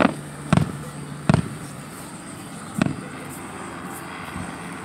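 Aerial firework shells bursting: four sharp booms, three close together in the first second and a half and one more almost three seconds in.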